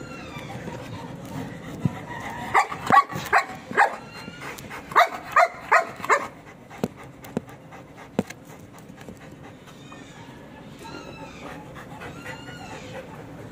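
Belgian Malinois barking in two quick runs of about four barks each, a second apart, followed by a few sharp clicks.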